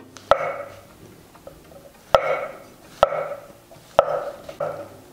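Chef's knife slicing through button mushrooms and tapping the wooden cutting board, about six separate strokes roughly a second apart, each with a brief ring after it.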